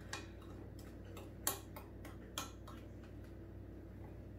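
A small utensil clicking against a glass baking dish as soft fudge is swirled by hand: a handful of irregular light clicks, the loudest about a second and a half in, over a steady low hum.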